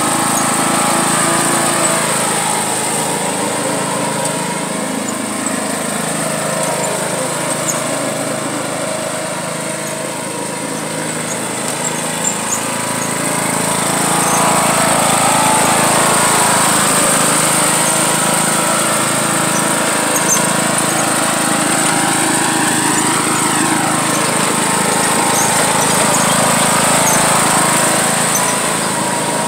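John Deere riding lawn mower's engine running steadily under load as it tows a person on a rope through mud. Its level and pitch shift as it is driven, growing louder about halfway through.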